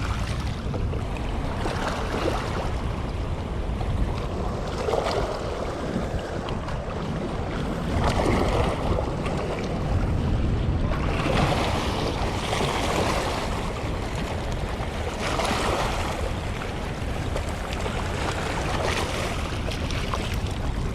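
Steady rush of water pouring through a lake spillway, with wind buffeting the microphone. The rush swells and eases every few seconds.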